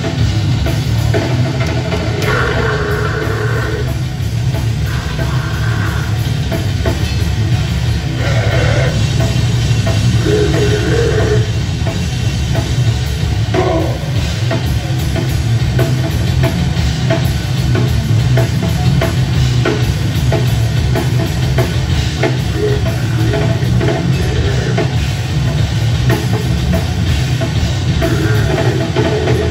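Loud live heavy rock band playing: distorted electric guitar, bass guitar and a pounding drum kit, dense and bass-heavy. A vocalist shouts short phrases at times.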